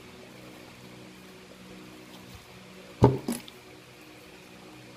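Wet mouth sounds of eating soft young coconut meat, with a short, loud wet slurp about three seconds in over a faint steady hum.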